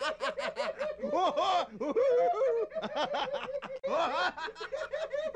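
Laughter sound effect: a long, fast run of short 'ha-ha' bursts that rise and fall in pitch.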